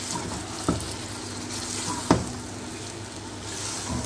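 Raw chicken pieces sizzling in oil in a nonstick pan while being stirred with a spatula, fried until the meat changes colour. A couple of sharp knocks of the spatula on the pan, the louder one about two seconds in.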